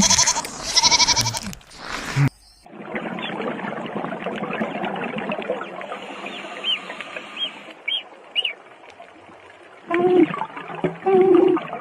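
Animal calls. Loud pitched calls in the first two seconds, then an abrupt change to a dense chatter of many animals with a few high chirps, and two lower calls near the end.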